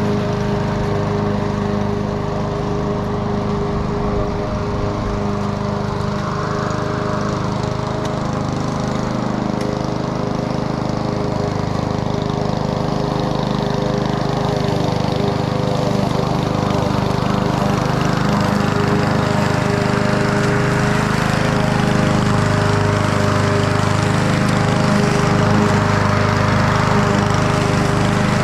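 Honda 21-inch commercial walk-behind lawn mower's engine running steadily while mowing grass, getting a little louder from about halfway through.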